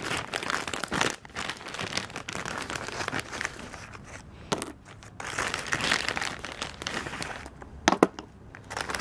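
Clear plastic parts bag crinkling and rustling as it is handled and parts are shaken out of it, with two sharp knocks near the end.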